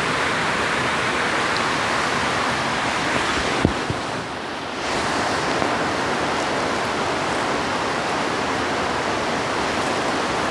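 Heavy rain, a steady dense hiss that dips briefly about four seconds in, with one short knock just before the dip.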